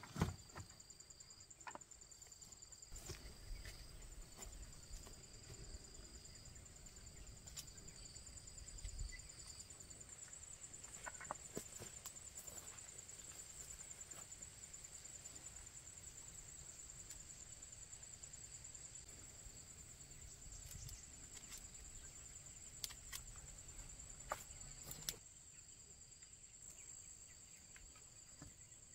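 Insects chirring steadily at a high pitch, with a second insect trilling on and off. A few sharp clicks and light knocks from handling the mesh netting and wooden fence posts.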